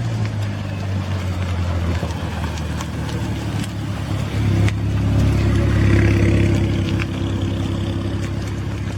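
A car engine running at low revs with a steady rumble. It grows louder about halfway through as the car moves off or passes, then eases back.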